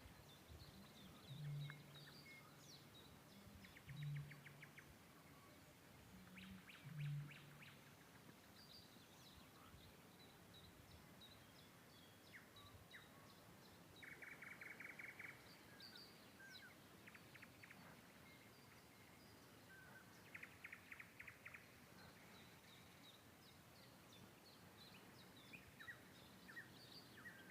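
Birds singing and chirping, with rapid trills repeating every few seconds among higher chirps. Three low calls come in the first seven seconds and are the loudest sounds.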